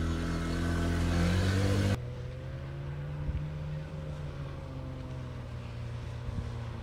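Small outboard motor revving up as the boat gets under way, its pitch rising. About two seconds in the sound cuts abruptly to a quieter engine running steadily as the boat heads off at speed.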